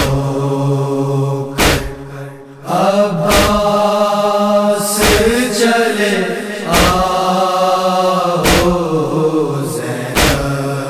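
Noha, a Shia lament chanted without instruments: voices hold long wordless notes, over a low steady drone for the first couple of seconds. A hard slap of matam (chest-beating) keeps time about every 1.7 seconds.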